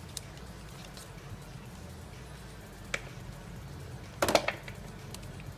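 Knife blade slitting the tape seal on a small cardboard and plastic product box, with box handling. A few faint clicks come first, then a short cluster of sharp scraping and cracking sounds a little after four seconds in.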